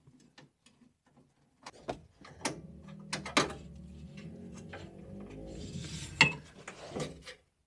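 Hand-screwing a gauge mounting plate onto a van's metal dashboard: scattered clicks, knocks and scrapes of the screwdriver, screws and plate. A low steady hum runs under them from about two seconds in until near the end.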